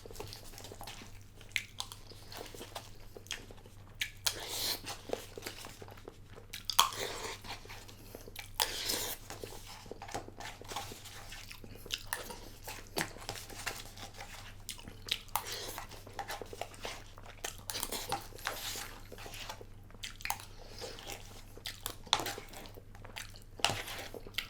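Close-up eating sounds of a person chewing a microwaved frozen dinner, with frequent irregular sharp clicks and short scrapes.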